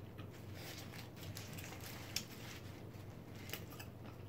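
Close-miked chewing of a mouthful of burger: soft, wet mouth clicks and squishes, with one sharper click about two seconds in, over a faint steady low hum.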